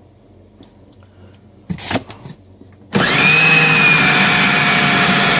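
Electric food processor switched on about three seconds in and running steadily, mixing a thick cake batter. Its motor has a high whine that dips slightly in pitch just after starting, then holds steady.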